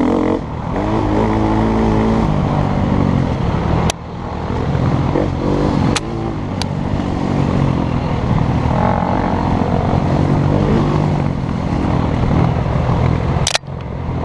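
KTM EXC-F 250's single-cylinder four-stroke engine revving up and dropping back as the enduro bike is ridden hard, its pitch rising and falling with throttle and gear changes. The sound drops away sharply for a moment about four seconds in and again near the end, with a few sharp clicks.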